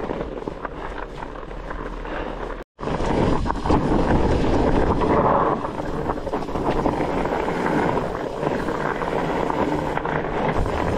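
Fat bike riding over snow and ice: the 4.5-inch tyres rumbling on the trail, with wind buffeting the microphone. The sound cuts out for a moment about two and a half seconds in, then comes back louder.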